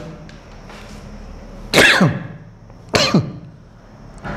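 A man coughing twice, about a second apart, each cough sharp at the start and falling away quickly; a third cough begins near the end.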